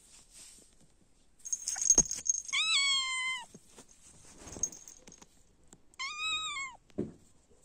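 Kitten meowing twice, a longer high meow about two and a half seconds in and a shorter one about six seconds in. A sharp thump just before the first meow and another after the second, with some rustling.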